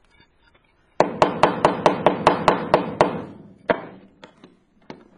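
Brass tubing being knocked down into a tight brass threaded fitting: a fast run of sharp knocks with a metallic ring, about five a second for two seconds, then a few slower single knocks.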